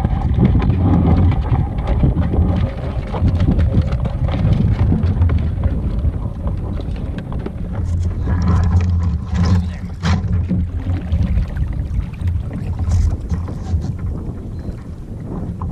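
Wind buffeting the microphone in a heavy, steady rumble, over water sloshing against a kayak, with a few brief sharper sounds around the middle.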